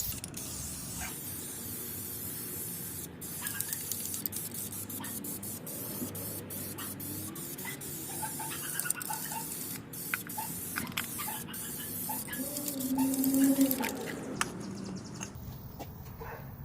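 Aerosol spray can hissing as gloss clear coat is sprayed onto a wheel, with a few brief breaks where the nozzle is released, and the hiss stops near the end. A short squeal rises out of it a little before the hiss ends.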